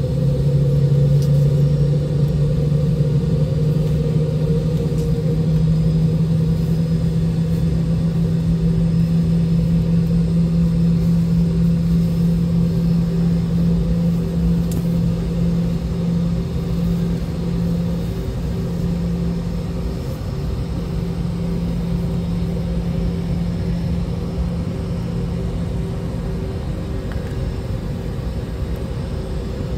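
Boeing 717's twin Rolls-Royce BR715 turbofans idling, heard from inside the passenger cabin: a steady low drone with a constant hum, a little quieter in the last ten seconds.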